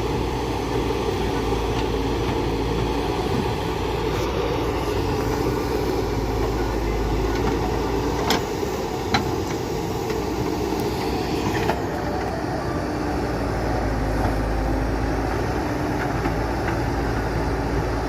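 Escorts Digimax II backhoe loader's diesel engine running steadily under work, with two short sharp knocks near the middle.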